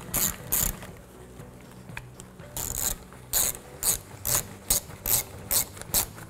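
Hand ratchet with a socket extension clicking as bolts are snugged down under a car's front bumper: two clicks, a pause of about a second and a half, then steady clicking at about three clicks a second.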